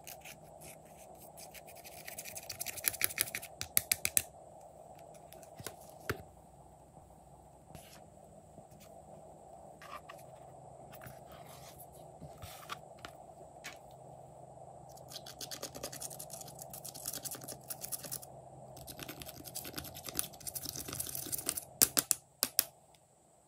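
Eyeshadow powder being scraped out of palette pans with a small pick, in runs of fine scratchy strokes, with a few sharp clicks near the end.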